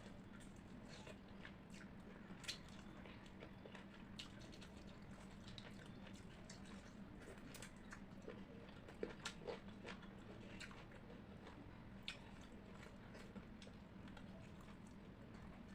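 Quiet close-miked chewing and wet mouth sounds of rice and curry being eaten, with soft scattered clicks and smacks and a few louder ones about nine seconds in. A faint steady hum sits underneath.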